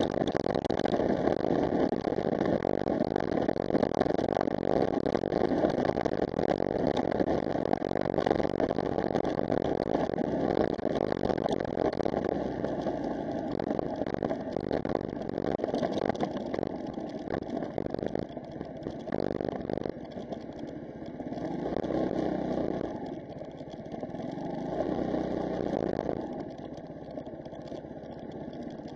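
Engine and road noise of a vehicle on the move, picked up by its dashcam. It grows quieter about two-thirds of the way through, with a couple of slow swells after that.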